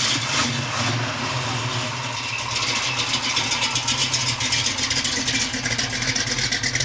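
Mercury pickup truck engine running at idle, a steady low hum with an even rapid pulsing that grows stronger about two and a half seconds in.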